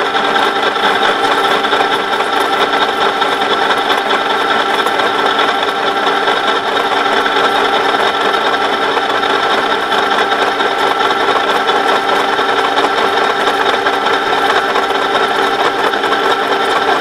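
Conventional milling machine's spindle and gear drive running with a steady whine of several held tones, while an 18 mm four-flute HSS end mill is hand-fed gently down into ST 41 steel.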